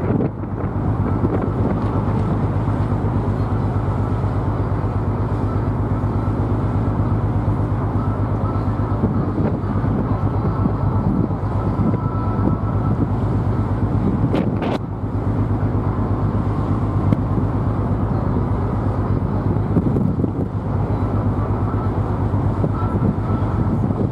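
Diesel engines of a river cruise ship running at a steady low throb with a fast, even pulse as it passes close by. One short click comes a little past halfway.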